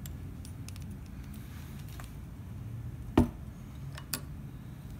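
Small metal clicks and taps as a rifle trigger assembly's parts and a small Allen wrench are handled and lined up by hand. One sharp, louder click comes about three seconds in and a smaller one about a second later.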